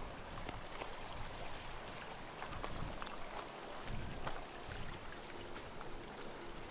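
Seawater lapping and trickling at the water's edge, with many small scattered ticks and splashes over a low, uneven rumble.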